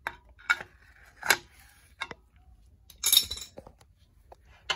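Wrench clicking on a steel differential cover's fill plug as it is backed off, in a few separate sharp metallic clicks, then a short metal clatter about three seconds in.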